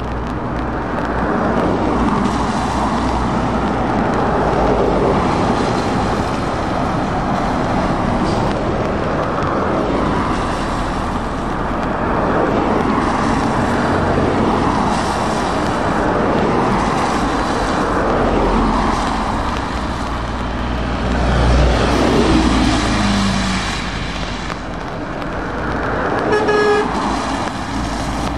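Steady traffic of cars and lorries passing on a rain-wet road, tyres hissing and diesel engines swelling and fading as each vehicle goes by. A brief horn toot sounds near the end.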